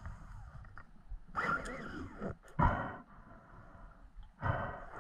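Muffled underwater noises heard through a diving camera, in three separate bursts: a longer one a little over a second in, a short one near the middle, and another near the end.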